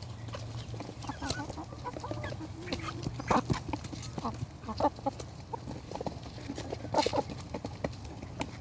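Rooster wearing an anti-crow collar crowing, a low drawn-out call from about one and a half to three seconds in, with clucking and sharp knocks and clicks scattered through, the loudest a few seconds in and near the end.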